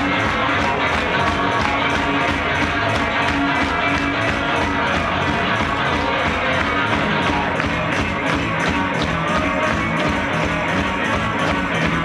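A live garage rock band playing electric guitar over a fast, steady drum beat of about four to five hits a second, heard loud from within the crowd.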